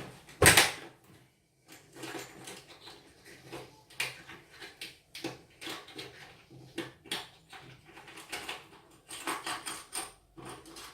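Rummaging for a drill bit among small tools: a run of irregular clicks, knocks and clatters, with a louder scrape about half a second in.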